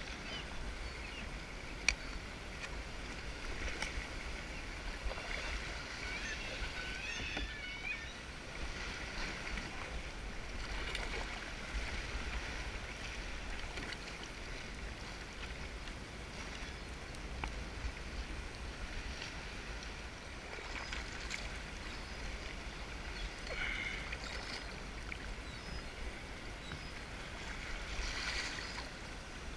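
Sea water lapping and splashing gently around a plastic sit-on-top kayak and its paddle, with faint scattered drips, over a steady low rumble; the splashing is a little louder near the end.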